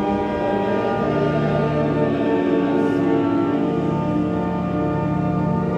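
Church organ playing slow, sustained chords, the held notes shifting to new ones every second or two.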